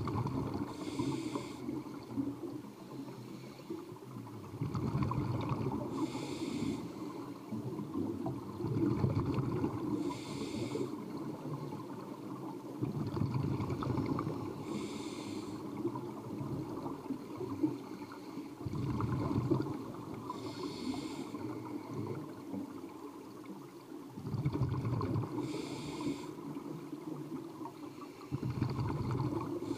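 A scuba diver breathing through an open-circuit regulator underwater: a short hissing inhale about every five seconds, each followed by a longer low bubbling of exhaled air.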